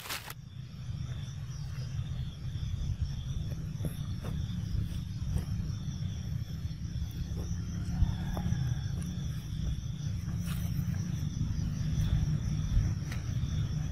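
Outdoor ambience: a steady low rumble with a faint, steady high-pitched hum and a few scattered small clicks.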